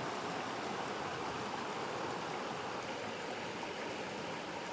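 A river flowing: a steady, even wash of moving water.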